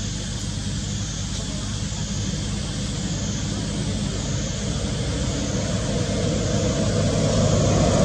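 A motor engine drones steadily and grows louder toward the end, as if coming closer. Over it, a high, thin sound rises and falls about once a second.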